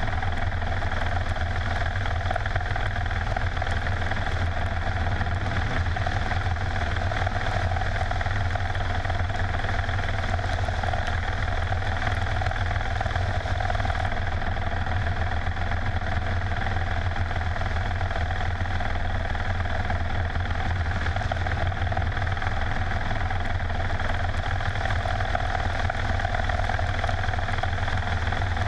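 Mil Mi-24 attack helicopter's turboshaft engines and rotor running in flight: a steady, unbroken deep drone with a hum above it.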